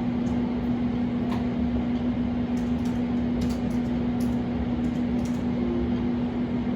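Steady machine hum: a constant low tone over an even fan-like hiss, with a few faint high ticks.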